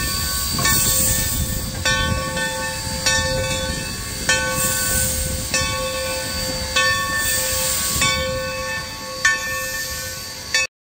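Steam locomotive's bell ringing in a steady rhythm, about one stroke every second and a quarter, each stroke ringing on into the next, over hissing steam and a low rumble. It cuts off suddenly near the end.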